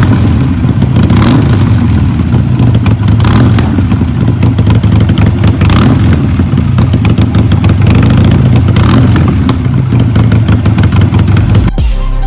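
Exhaust note of a 2020 Harley-Davidson Sportster 48's air-cooled V-twin engine, running steadily with a few brief throttle blips.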